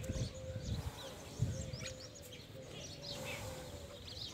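Small birds chirping in short high calls, with low rumbling bumps on the microphone in the first second and a half and a faint steady hum underneath.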